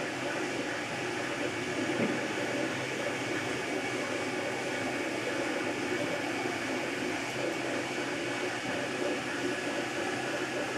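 MakerBot Replicator 2 3D printer running a print: the steady whir of its cooling fans and the hum of the stepper motors moving the extruder head, with a single short click about two seconds in.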